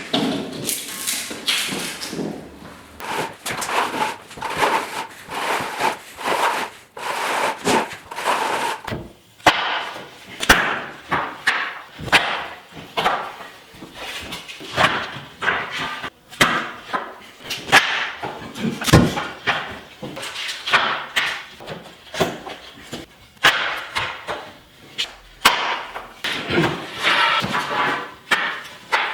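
Irregular knocks and thumps of timber floorboards being worked into place, many short sharp strikes throughout.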